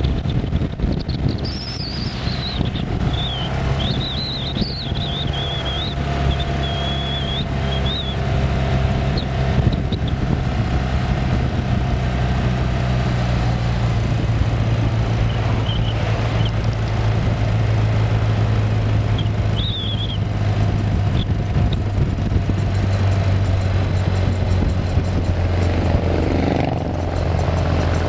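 BMW boxer flat-twin motorcycle engine running at a steady cruise, with wind and road rush on the on-board microphone; the engine note drops a little about two-thirds of the way through.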